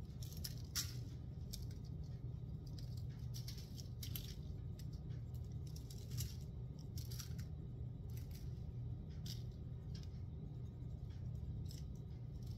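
Faint, scattered light ticks and rustles as a salt and pepper mix is sprinkled by gloved hand over vegetables on parchment paper, over a steady low hum.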